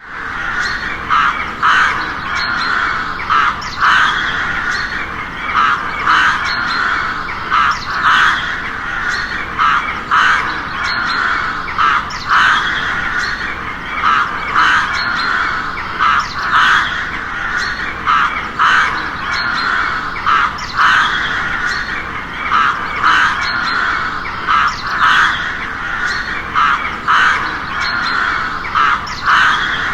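Many crows cawing over one another: loud caws about every second or two over a constant din of other crows calling.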